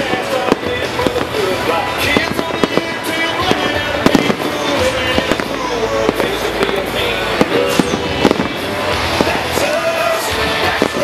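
Aerial fireworks shells bursting again and again, with sharp bangs and crackles several times a second. Music plays underneath.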